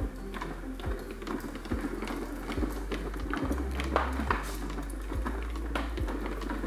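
Cat exercise wheel turning under a walking cat: a steady low rolling rumble with a regular knock a little more than once a second.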